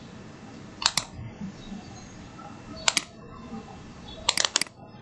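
Computer mouse clicks while drawing a CAD sketch. There is a click pair about a second in, another about three seconds in, and a quick run of about four clicks a little after four seconds, over a faint steady hiss.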